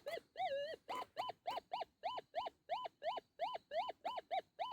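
Metal detector giving a target tone as it is swept over a buried metal object: a warbling tone, then a quick run of short beeps, each rising and falling in pitch, about three a second. It is the kind of strong signal that he says may be gold and should not be ignored.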